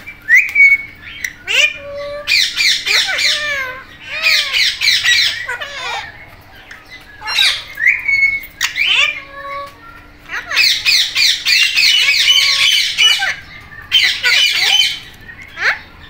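Alexandrine and Indian ringneck parakeets squawking in about six bouts of rapid, harsh calls. Between the bouts come short clear whistled notes that slide down in pitch. A faint steady hum runs underneath.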